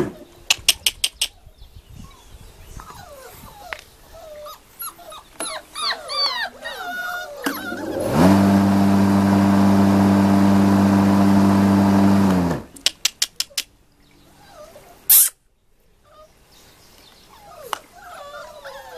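Entlebucher Mountain Dog puppies whimpering and yipping, a string of wavering high calls a few seconds in and again near the end. In between, a loud steady mechanical hum starts with a rise in pitch, runs for about four seconds, then stops. There is also a quick run of clicks before it and after it, and a single sharp bang.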